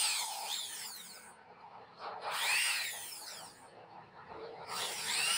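Electric hand drill run in three short bursts, working into a carved wooden clock frame. Each burst has a motor whine that spins up and winds down over the hiss of the bit in the wood.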